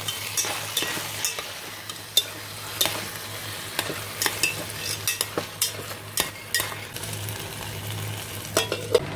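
Marinated chicken wings sizzling in the open metal inner pot of a rice cooker while chopsticks stir them, with frequent sharp clicks of the chopsticks against the pot.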